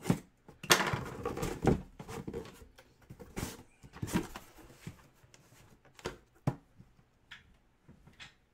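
Hands handling a cardboard box: a run of knocks, taps and scraping rustles as the lid and items on it are moved. The sounds are busiest at first, then thin to scattered single knocks.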